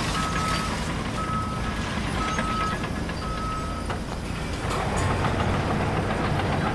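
A backup alarm on heavy construction machinery beeps four times, about once a second, over the steady low running of the machine's engine. The engine grows louder after the beeps stop.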